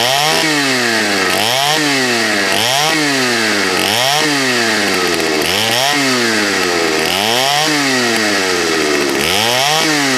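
Vintage 1979 Partner S-55 two-stroke chainsaw revved up and down over and over, about one rise and fall every second and a quarter.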